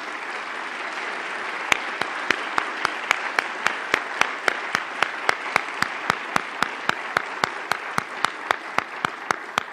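Audience applauding steadily. From about two seconds in, one person's claps stand out sharply above the rest, about four a second.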